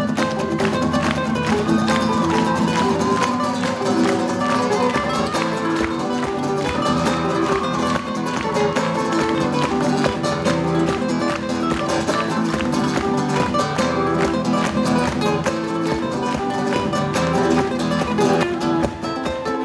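Two acoustic guitars playing a fast, rhythmic instrumental: a picked melody over dense percussive strumming, in the flamenco-influenced style of this guitar duo.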